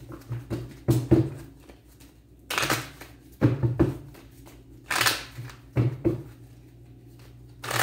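Tarot cards being shuffled and handled, in short rustling, snapping bursts a second or two apart.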